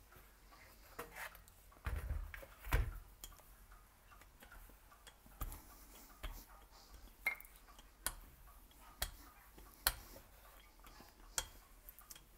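Irregular light knocks and clicks, a little under one a second, from handling pastry dough and kitchen tools on a counter while the dough is evened out.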